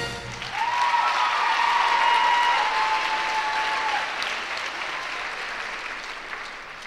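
Audience applauding at the end of a tap dance number, with one long high-pitched call from the crowd held over it for a few seconds. The clapping slowly fades away.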